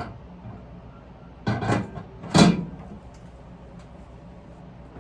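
Two clunks about a second apart as the microwave is handled, the second one louder.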